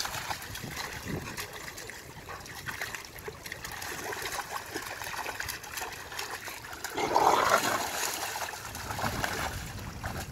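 Two dogs splashing and wading in shallow water as they play, water sloshing and splattering, with a louder stretch about seven seconds in.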